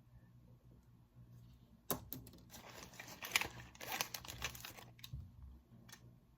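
Crinkling, rustling noise made of many small crackles, lasting about three seconds. It starts with a sharp click about two seconds in, over a faint steady low hum.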